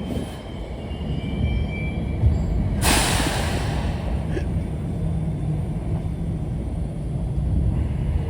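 New York City subway train standing at the platform with a steady low rumble, and a sharp hiss of air from its brakes about three seconds in that fades over a second.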